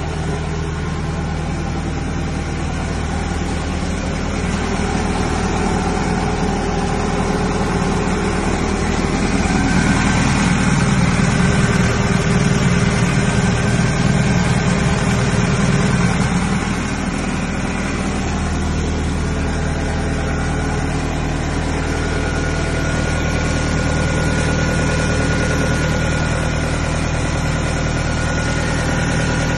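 Kubota DC95 combine harvester's diesel engine running steadily at a low, even speed, growing louder for several seconds near the middle.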